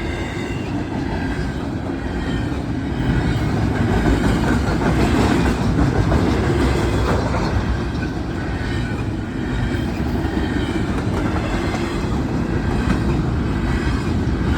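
Long freight train rolling past, its cars rumbling and its wheels clacking over the rail joints, a little louder a few seconds in.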